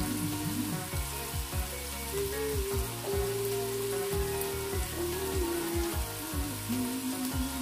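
Background music with a melody and a steady beat of deep falling bass notes, over a steady hiss of chopped tomatoes and onions sizzling in oil in a non-stick wok.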